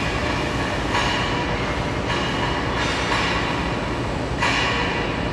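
Metal-fabrication shop machinery running: a steady mechanical rumble with hissing surges that come and go every second or so.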